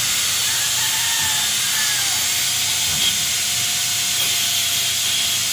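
A small handheld power tool running steadily at a pipe fitting: a continuous hiss with a faint, even whine under it.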